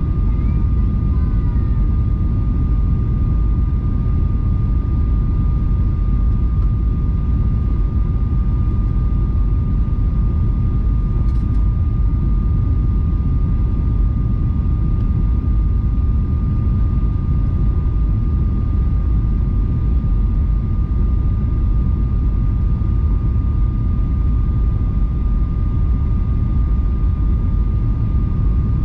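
Airliner cabin noise during the descent to land: a steady low rumble of engines and airflow with a thin, constant whine over it.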